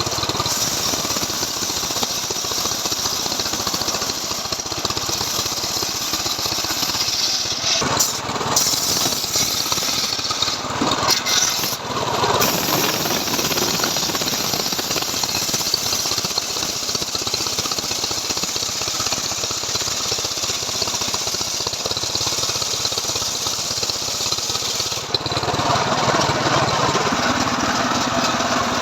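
Two-stroke Stihl MS 381 chainsaw engine running continuously, powering a homemade saw rig that cuts through wood. Its sound shifts about 25 seconds in.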